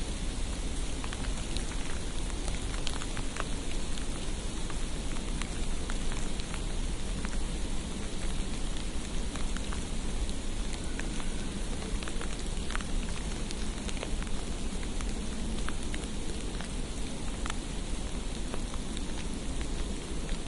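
Steady hiss of falling precipitation, presented as snowfall, with scattered light ticks of drops or flakes striking surfaces and a steady low rumble underneath.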